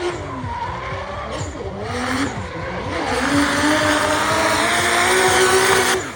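Toyota 2JZ inline-six in a BMW E46 drift car running hard through a drift, its pitch rising and falling with the throttle, over squealing tyres. It grows louder through the second half and cuts off suddenly near the end.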